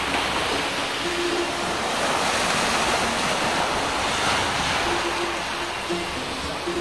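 Small waves washing onto a sandy beach, a steady rushing wash that swells slightly a few seconds in.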